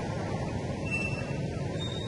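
Steady low rumbling background noise, with two faint short high chirps, one about a second in and one near the end.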